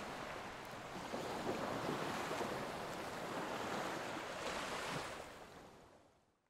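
Surf washing onto a sandy beach, a steady rushing noise that fades out over the last second and a half.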